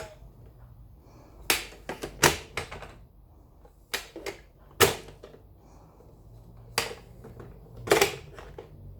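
Irregular plastic clicks and knocks from a baby toy being handled and banged, in short clusters with pauses between them.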